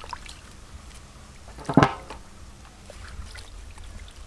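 Water dripping and splashing as chunks of buffalo leg bone are rinsed by hand in an aluminium bowl, with scattered small clicks and one louder knock a little under two seconds in.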